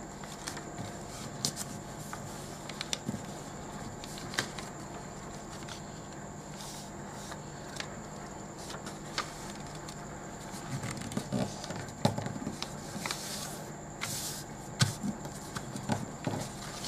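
A sheet of paper being handled and folded: crinkling, scraping and sharp little crackles and taps as it is creased against the tabletop, scattered and busiest in the second half, over a steady low hum.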